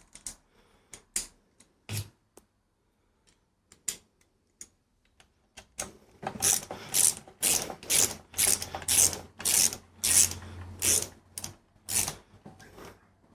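Socket ratchet clicking as a crankcase bolt is run in. A few scattered clicks come first, then, about halfway through, quick back-swings at about two a second.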